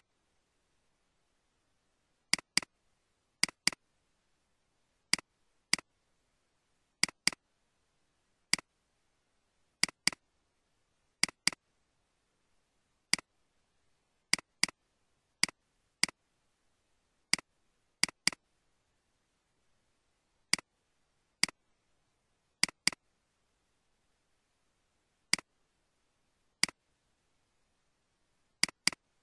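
Computer mouse clicks, some single and many in quick double-click pairs, a second or two apart with silence between, as folders are opened one after another.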